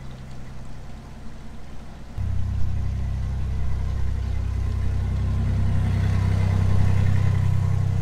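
Narrowboat engine running at low throttle, then opened up about two seconds in to a louder, steady run as the boat moves through the lock.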